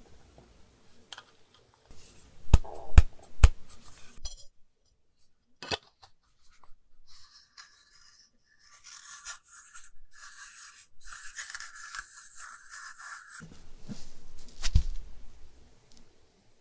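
Hard plastic wobble-tower pieces clacking against each other as they are pulled apart, then several seconds of plastic scraping and rubbing as they are handled and stacked, and a single thump near the end as the assembled tower is set down on the table.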